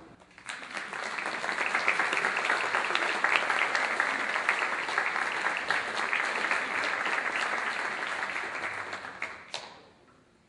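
Audience applauding: dense clapping that starts about half a second in, holds steady, and dies away near the end.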